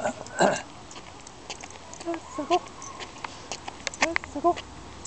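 Light clicking steps of a dog walking on a leash along a concrete sidewalk. There is a brief rush of noise about half a second in, and a few short pitched calls around two and four seconds in.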